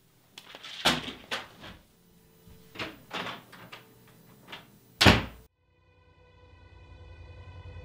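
A run of knocks and bumps, like a door or cupboard being handled, ending in a loud slam about five seconds in. The sound then cuts off suddenly and a low, steady droning tone swells up.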